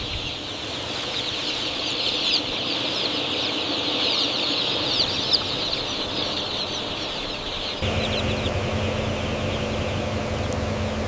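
Dense chorus of peeping from a large flock of young broiler chicks. About eight seconds in a steady low machine hum starts and the peeping becomes fainter.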